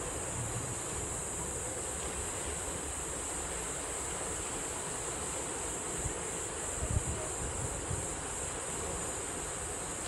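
Sea surf washing over a rocky shore, with wind buffeting the microphone in low rumbling gusts, strongest about seven seconds in, over a steady high hiss.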